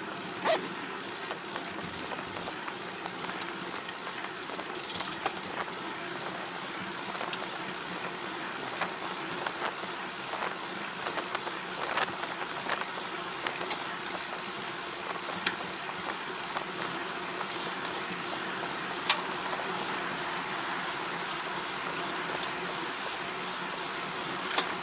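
Steady noise of a ride under way, with scattered sharp clicks.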